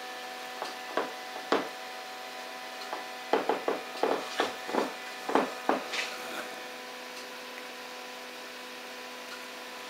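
HO-scale Piko 040 (G7 / BR 55) model steam locomotive running with sound: a steady electric hum made of several fixed tones, and about a dozen short sharp sounds at irregular spacing that stop about six and a half seconds in.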